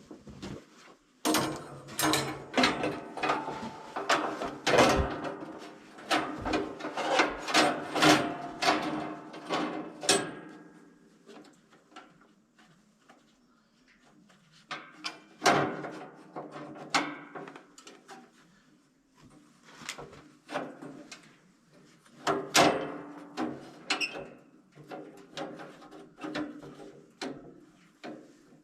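Irregular knocking and clattering of hard objects being handled, dense for about ten seconds, then in shorter clusters after quiet pauses.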